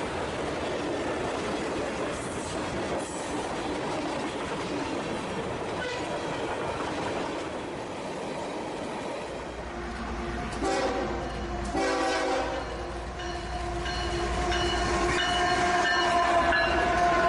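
A real train running on the rails with a steady rumble. About two-thirds of the way in, its multi-tone horn sounds two short blasts and then one long held blast, over a deep engine rumble.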